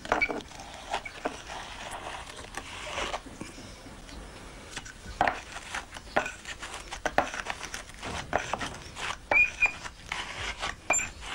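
Hands and a wooden spatula working wet clay on a clay prototype for a dry-lacquer vessel: irregular pats, slaps and soft scraping as slabs of clay are pressed on and shaped.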